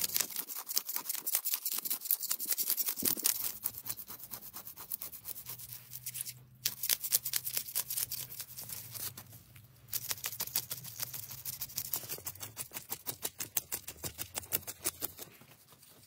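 Knife blade scraping scales off a large fish in rapid, even strokes, several a second, with brief pauses about six and nine and a half seconds in.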